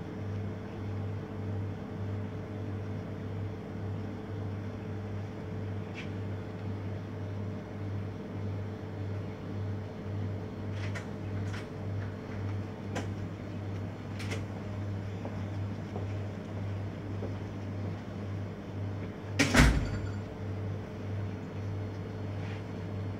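Steady low mechanical hum with a slight pulse, with a few faint clicks and one loud thump near the end.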